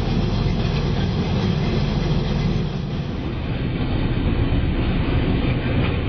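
Harvesting machinery running steadily, with a loud, low, even mechanical noise and no breaks.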